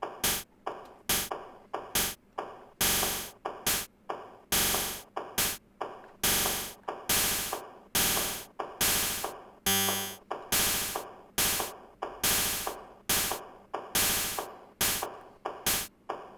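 A Teenage Engineering PO-24 Office pocket operator drum machine playing a looping beat built from its sampled office-noise percussion. Short clicky hits alternate with a longer noisy snare hit that comes back about every 1.7 s. About ten seconds in there is a brief stuttering, glitchy sound.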